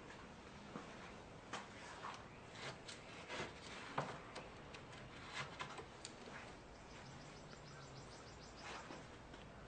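Quiet workshop handling sounds: scattered light clicks, knocks and rustles as wood pieces and tools are moved about. A quick run of faint high ticks comes around seven seconds in.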